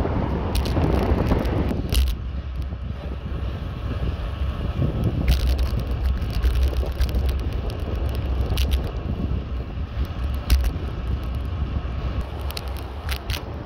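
Wind buffeting the microphone of a camera riding along on a bicycle, a heavy steady rumble, with scattered sharp clicks and rattles as the bike rolls over the road.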